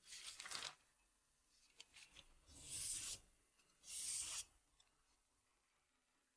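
Sheets of printed paper rustling in three short bursts, as pages of a bank statement are handled and turned.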